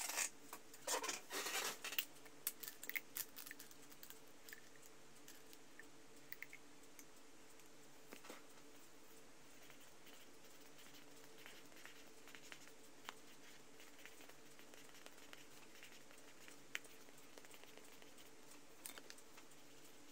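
Paper card being handled: crisp rustles and taps for the first two seconds, then only occasional faint ticks over a steady low hum.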